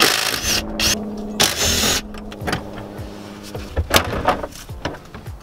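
A small electric motor running steadily for about three and a half seconds, typical of a cordless power tool backing out panel bolts, with two short bursts of harsh noise in the first two seconds and a few clicks afterwards.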